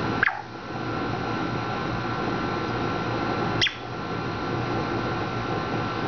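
African grey parrot giving two short, sharp chirps about three seconds apart, over a steady background hiss.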